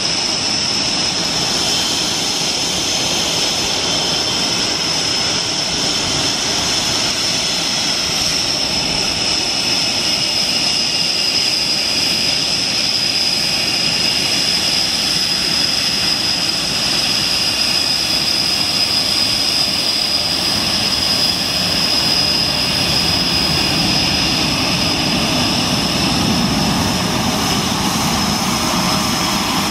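Panavia Tornado's twin RB199 turbofans running at taxi power as the jet rolls slowly past: a steady high-pitched whine over a broad rushing jet noise. The low rumble grows stronger near the end as the tailpipes turn toward the listener.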